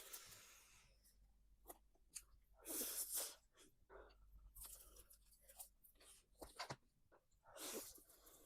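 Crunching and chewing of crisp food close to the microphone, with scattered small crackles and two louder crunching bursts, about three seconds in and near the end.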